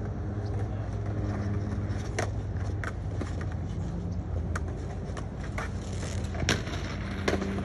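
Skateboards clacking on concrete a few times at a distance, over a steady low hum.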